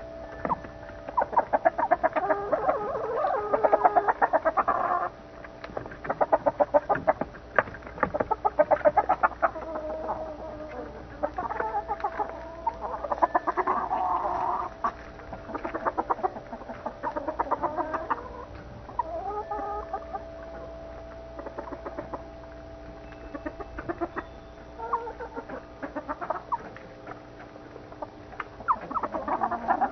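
Backyard hens clucking in repeated bouts, each a quick run of clucks lasting a few seconds, with short lulls between them.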